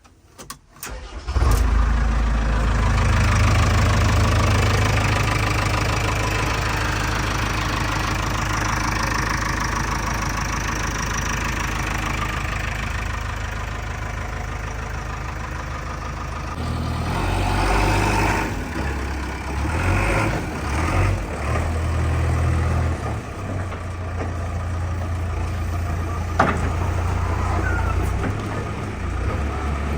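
JCB backhoe loader's diesel engine running, coming in abruptly about a second in. After about halfway it turns uneven, rising and falling as the machine works, with a sharp click near the end.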